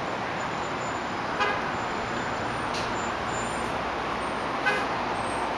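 Steady hum of road traffic heard from high above, with two short car-horn toots about three seconds apart.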